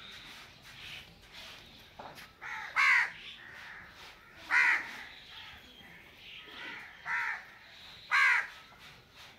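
A crow cawing four times, each caw short. The first comes about two and a half seconds in and the last near the end.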